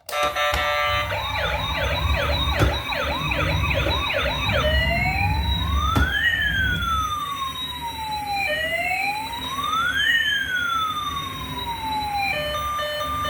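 Toy emergency vehicle's electronic siren sounding through its small speaker. It starts as a fast yelp, about three rises a second, then changes to a slow rising-and-falling wail of two long cycles. A steady beeping tune starts near the end, and a low rumble runs underneath in the first half.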